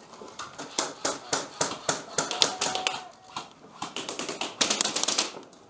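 Airsoft gunfight at close range: a fast, irregular run of sharp clicks and taps, BBs striking and ricocheting around the shooter's position among airsoft rifle shots, thickest near the end.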